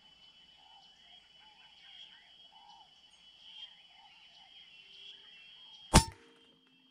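Faint bird calls, then a single sharp rifle shot about six seconds in.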